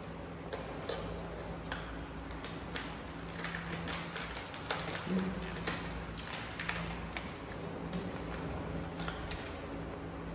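A crinkly plastic snack bag being handled and shaken out: a scatter of short, sharp crackles and taps, busiest in the middle. A steady low hum runs underneath.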